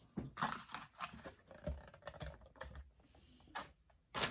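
A plastic lid and takeout soup container being handled: a run of irregular clicks and taps, with a louder knock at the end.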